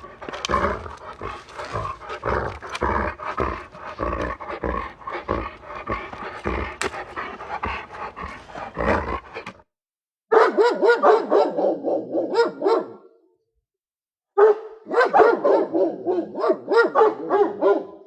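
Angry dogs barking: for about nine seconds several barks pile over one another with low thuds. After a short break come two separate runs of rapid, fast-repeating barks, a few barks a second.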